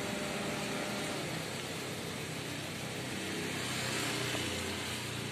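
A motor vehicle's engine running steadily, swelling slightly in loudness about four seconds in.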